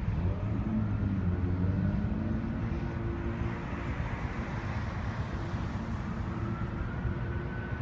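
Cars driving past on a city street, two passing close, over the steady low rumble of a freight train of covered hopper cars rolling along an elevated line.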